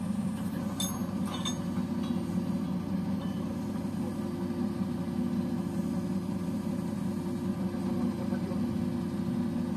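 Diesel engine of a crane truck running steadily to drive the truck-mounted hydraulic crane, a continuous drone with a steady hum over it. Two light metallic clinks about a second in.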